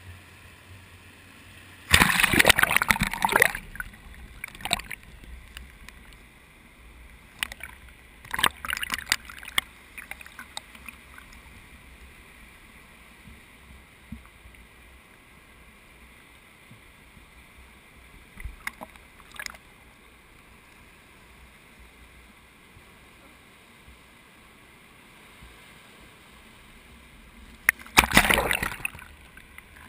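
Surf washing over a GoPro's waterproof case at the waterline: four loud bursts of splashing water, the biggest near the start and near the end, with a low steady wash of surf between them.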